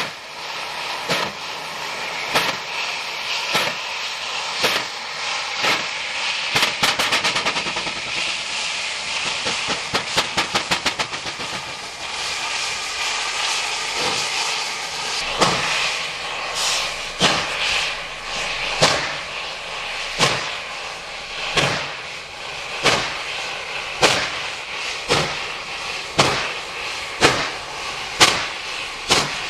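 Steam locomotive 3801 (a C38-class Pacific) working hard at low speed, its exhaust chuffing in slow, separate beats. Twice the beats suddenly race much faster for a second or two, then fall back to a slow beat: the driving wheels slipping on a wet, slippery rail while climbing Young bank.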